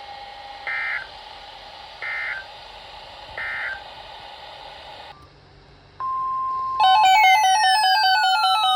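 Three short, identical warbling data bursts of an Emergency Alert System SAME end-of-message signal, about a second and a half apart, over a faint steady hum. After a brief lull, a steady beep starts about six seconds in, then loud electronic music with beeping and falling sweeping tones.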